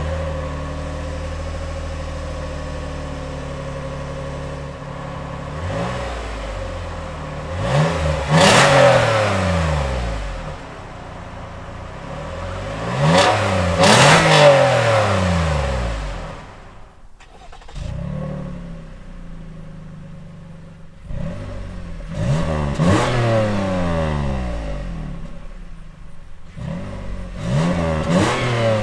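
Toyota Highlander 3.5-litre V6 exhaust at the tailpipe: the engine starts, idles, and is revved three times, each rev rising and falling back to idle. After a break about 17 seconds in, a second Highlander's V6 idles and is blipped several times in quick succession.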